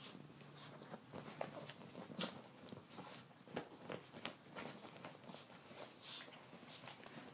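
Comforter and bedding rustling and scuffling as a chihuahua rolls and rubs itself on them after a bath, with irregular short scrapes and crackles.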